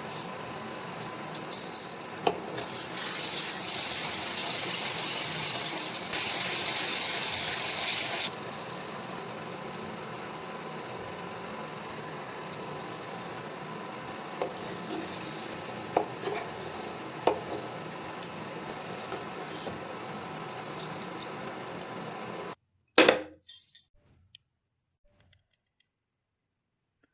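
Cooking in a pan on the stove: a steady sizzle, louder for several seconds near the start, with occasional sharp clinks of a utensil against the pan while stirring. About 23 seconds in the sound cuts off abruptly, followed by one loud clink that rings briefly and a few faint taps.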